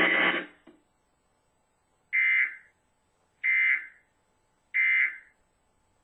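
Emergency Alert System digital data tones (SAME bursts) from a TV speaker: three identical short, shrill, buzzing bursts about 1.3 seconds apart, the short end-of-message signal that closes the Required Monthly Test.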